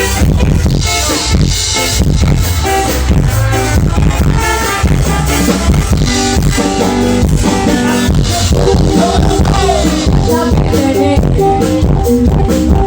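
Dangdut koplo band music played loud through a big sound system, with a steady driving beat and heavy bass.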